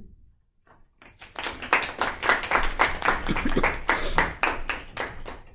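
A small group of people clapping. It starts about a second in after a brief hush and tails off near the end.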